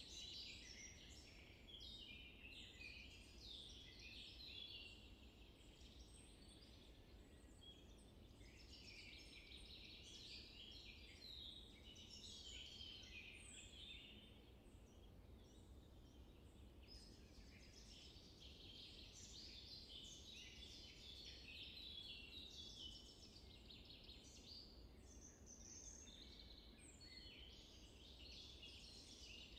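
Faint chorus of small birds chirping and twittering, with brief lulls.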